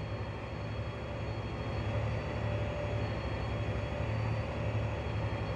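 John Deere 8260R tractor's diesel engine running steadily at about 1450 rpm under heavy draft load, heard from inside the cab, as it pulls a 4-metre subsoiler through compacted soil. A steady low drone with a faint even whine.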